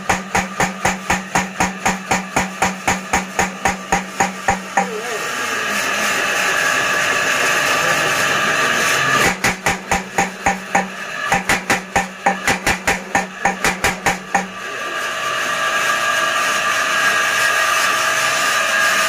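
Blacksmith's power hammer pounding in two runs of rapid, evenly spaced blows, about four a second, stopping about five seconds in and again at about fourteen seconds. Between and after the runs, the machine's motor keeps running steadily.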